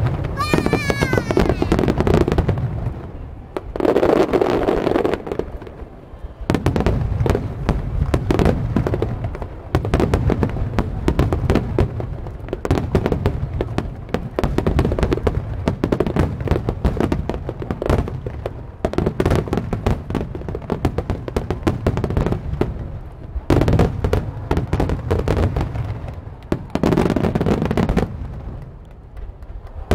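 Starmine fireworks barrage: many shells bursting in rapid, near-continuous bangs and crackle, with louder swells of booms every few seconds. A whistling shell rises about a second in.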